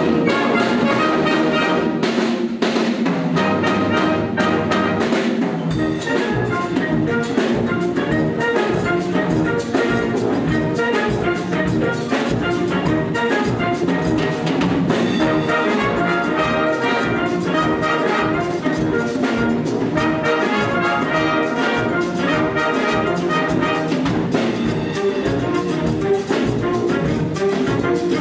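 Concert wind band playing a Cuban-style piece: brass, saxophones and clarinets over drum kit and percussion. A steady beat sets in about six seconds in.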